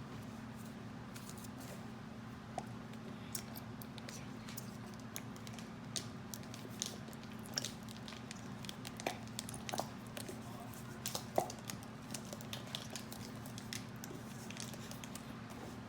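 White glue being squeezed from a bottle into a bowl: scattered soft squishes and small irregular clicks and taps, over a steady low hum.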